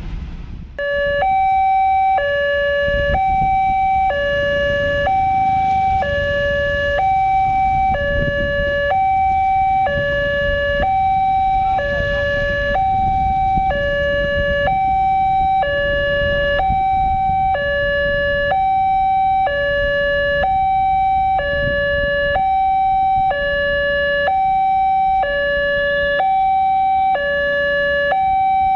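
Railway level-crossing warning alarm sounding from the crossing signal's loudspeaker. It starts about a second in and alternates steadily between a higher and a lower tone, warning that a train is approaching as the barriers close.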